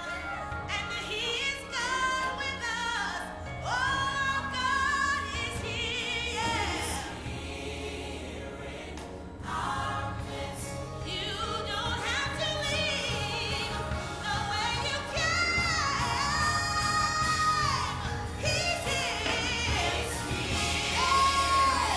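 Gospel music with singing: voices carry a melody, holding several long notes with vibrato in the second half, over a steady bass line.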